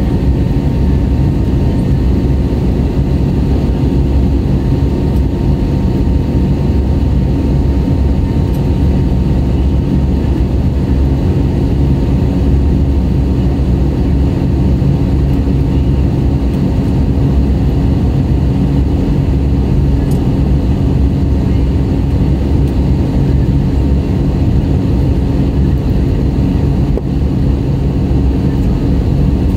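Airbus A320neo cabin noise during the climb, heard from a window seat beside the wing: the steady rush and drone of its Pratt & Whitney PW1100G geared turbofan engines and the airflow, with a low hum and a faint thin whine running through it.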